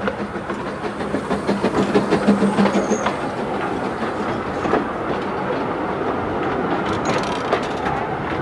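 A narrow-gauge Hunslet 0-4-0 steam tank engine passes close by bunker first, followed by its coaches rolling past with their wheels clacking over the rail joints. The locomotive is loudest in the first few seconds, then a steady rolling rumble with scattered sharp clicks from the coach wheels.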